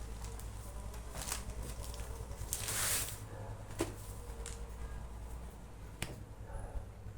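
Books and packaging being handled: paper and plastic rustling, with a few sharp taps and clicks, the longest rustle about three seconds in.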